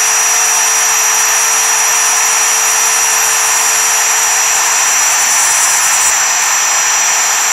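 Router spindle of a Mostly Printed CNC running at full speed while its single-flute end mill cuts a profile in 6061 aluminium plate: a loud, unbroken cutting hiss with a steady high whine.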